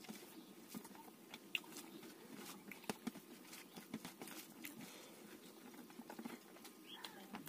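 Quiet eating sounds: fingers mixing rice on a steel plate and a mouthful being chewed, heard as a scatter of small clicks and wet smacks.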